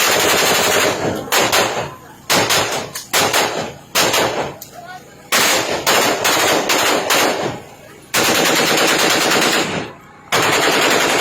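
Rapid automatic gunfire in about six bursts, the longest about two seconds, separated by short pauses.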